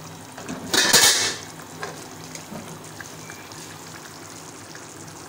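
A metal spoon scraping and stirring in a metal pot of chickpea curry, with one loud scrape about a second in and a few light clinks after it, over a quiet steady background.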